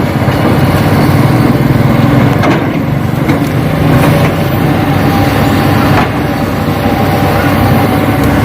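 A heavy engine running steadily with a low hum, with a few brief knocks along the way.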